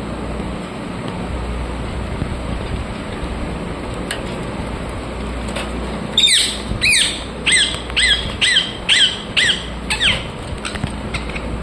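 Rose-ringed (Indian ringneck) parakeet giving a run of about ten loud, short calls, about two a second, each dipping in pitch, starting about halfway through and stopping near the end, over a steady background hum.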